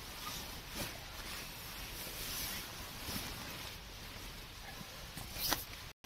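Synthetic sleeping bag fabric rustling and swishing as it is unrolled and spread out on a tent floor, with a few sharper swishes.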